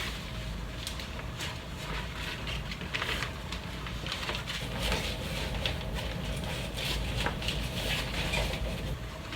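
Rustling and irregular light clicks from handling and assembling a photography softbox, over a steady low rumble.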